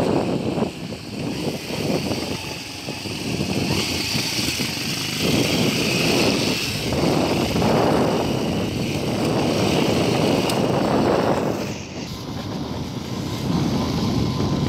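Strong wind buffeting the microphone in gusts, over a motorcycle running along a rough road. The rush swells about five seconds in and eases about twelve seconds in.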